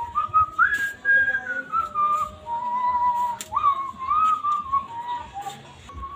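A person whistling a tune, one clear note at a time sliding between pitches, with a couple of sharp clicks.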